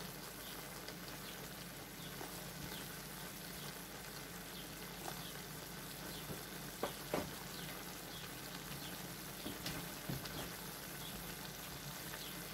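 Chicken and chicken liver frying in a wok: a steady sizzle with scattered small pops, and a couple of sharper clicks about seven and ten seconds in.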